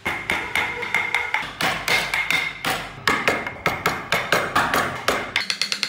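A carving chisel struck with a mallet in quick, repeated taps, several a second, cutting into wood.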